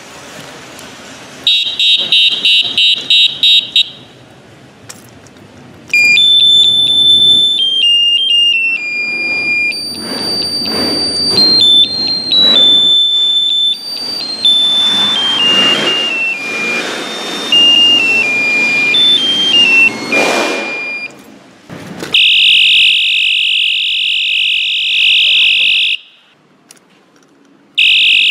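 Five-sound electronic bicycle horn sounding several of its tones in turn: first a rapid beeping trill, then a long tune of stepped electronic notes, then a loud, steady, shrill alarm tone that stops and sounds again briefly near the end.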